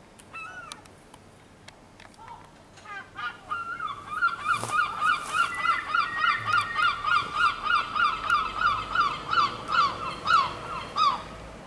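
A bird calling nearby in a fast, even run of identical notes that bend up and down, about three to four a second, for around seven seconds, after a few scattered shorter calls.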